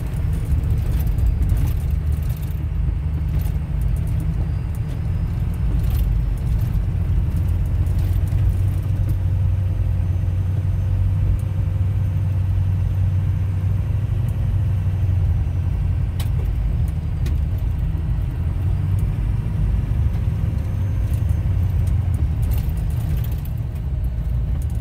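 Steady low rumble of a vehicle driving along a dirt and gravel road, heard from inside the cab: engine and tyre noise, with a few sharp clicks.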